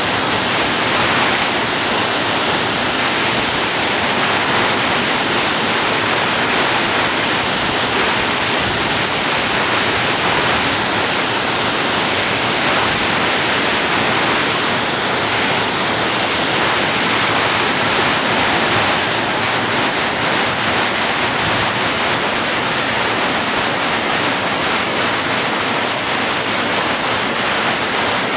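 Waterfall rushing loudly and steadily, a dense, even roar of falling water.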